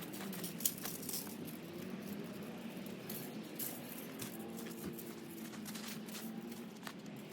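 Black bark mulch being spread over the bed: a steady run of small rustles, clicks and scrapes as the woodchips are moved.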